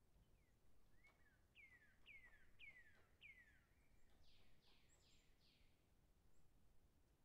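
Faint birdsong over near silence: four clear notes, each sliding downward, then a quicker run of four higher, less clear falling notes.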